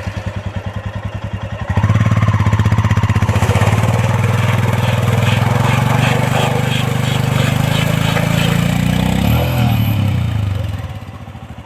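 Royal Enfield Scram 411's single-cylinder engine ticking over with an even beat, then pulling loud under throttle about two seconds in and running that way for most of the stretch before easing back to idle near the end.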